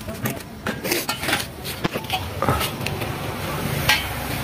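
Scattered clinks and sharp knocks of metal cooking utensils and pots, two of them standing out about two seconds in and near the end, over a steady background hiss.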